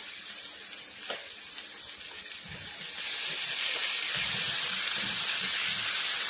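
Chopped pork, garlic and onion sizzling in hot oil in a pan, with a small clink about a second in. The sizzling gets louder about halfway through as the chopped tomato goes into the pan.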